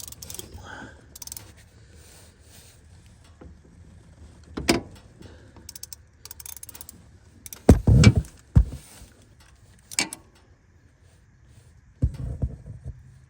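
Metal clinks and knocks of a wrench working an ATV's oil drain bolt loose: scattered sharp clacks, with the heaviest knocks about eight seconds in and a few more near the end.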